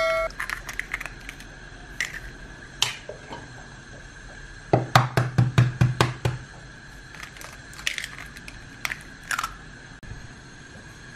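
Eggshells cracking as two eggs are broken open over a ceramic mixing bowl: scattered sharp clicks and crackles, with a run of quick taps about five seconds in.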